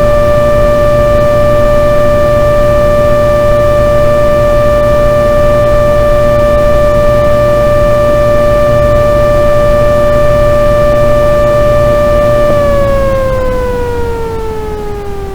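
Belanger car wash dryer blower motor running with a loud, steady whine over a low rumble. About twelve seconds in it is switched off: the whine falls in pitch and fades as the blower spins down.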